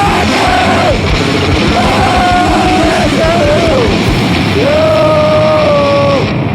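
Live rock band playing loud and fast: drums, bass and guitar under a yelled vocal with long held notes. The band stops sharply near the end.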